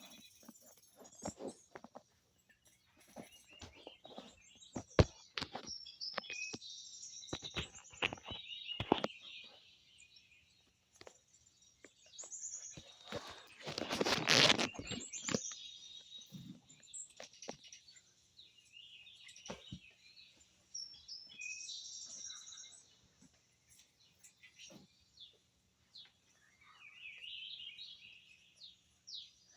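Small birds chirping with many short, high calls, mixed with scattered clicks and knocks, and a louder rustling burst about halfway through.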